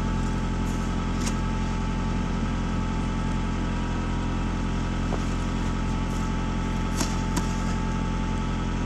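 An engine running steadily at idle, with a few short sharp clicks or scrapes about a second in and twice around seven seconds.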